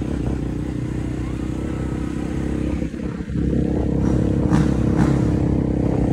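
Motocross bike engine running steadily while riding; about three seconds in it briefly eases off, then picks up and runs louder. A couple of short clicks sound a little later.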